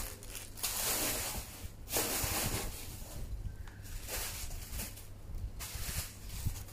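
Plastic bubble wrap and packing bags rustling and crinkling in uneven bursts as a parcel is unpacked.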